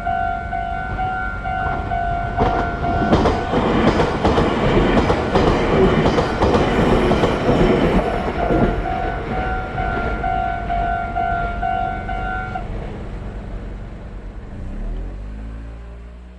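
Japanese level-crossing warning bell sounding its repeated 'kan-kan' clang while a train passes over the crossing, its wheels clattering over the rail joints. The train is loudest from about three to eight seconds in, and the bell cuts off about twelve seconds in.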